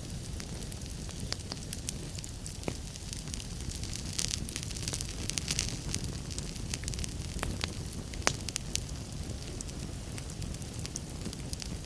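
Wood fire burning in a fireplace: a steady low rumble of flames under frequent sharp crackles and pops. The crackling gets busier around the middle, and one louder pop comes a little after that.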